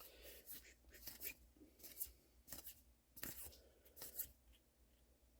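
Faint rustles and soft ticks of trading cards being handled and slid one over another, a short stroke every half second or so.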